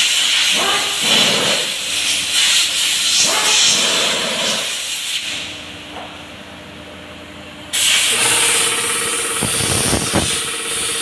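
A loud, steady hiss that dies away about five seconds in and comes back abruptly near eight seconds, with a few low knocks under it.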